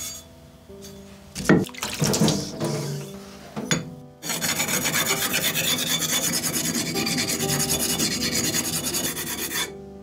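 Steel knife blade of a wa-gyuto scrubbed rapidly back and forth on a diamond sharpening plate: a loud, even rasping at about seven strokes a second that starts about four seconds in and stops just before the end. Before it come a few knocks and scrapes as the plate is set into its holder.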